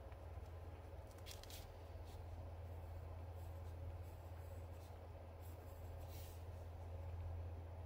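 Graphite pencil scratching lightly across watercolour paper in a few short sketching strokes, over a steady low hum.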